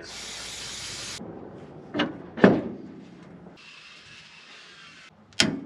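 An aerosol spray can hissing in two bursts, the first about a second long and the second about a second and a half. Between them come two sharp metal clanks, the louder one about two and a half seconds in, and another clank comes near the end.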